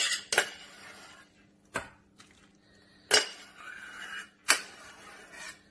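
Metal spoon scraping cooked rice out of a small stainless-steel saucepan and knocking against the pans: several sharp clinks, the loudest in the second half, with softer scraping between.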